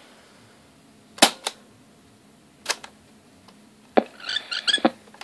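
Piano-key transport buttons of a Sony TC-63 cassette-corder being pressed: three sharp clicks about a second and a half apart, then a brief high chattering sound with one more click near the end.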